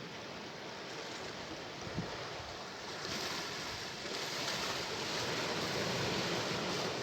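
Sea waves washing ashore, a surge building about three seconds in and breaking loudest near the end. A brief low thump about two seconds in.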